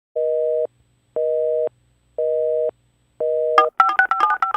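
Telephone busy signal: four half-second two-tone beeps, one a second, followed a little past three and a half seconds in by a quick run of touch-tone dialing beeps.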